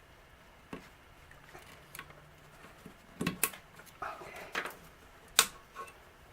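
Small metal rifle parts and tools being handled during gunsmithing: scattered sharp clicks and knocks, a quick cluster about three seconds in, a short scraping rub around four seconds, and the loudest click about five and a half seconds in.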